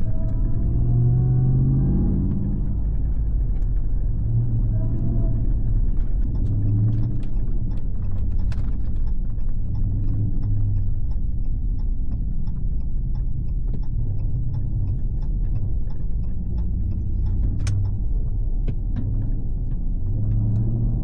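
Ram TRX's supercharged 6.2-litre V8, breathing through an aftermarket exhaust with SLP resonators, running steadily on the road with a continuous low exhaust rumble. A faint rising whine comes in the first couple of seconds, and light ticks and clicks sound over it.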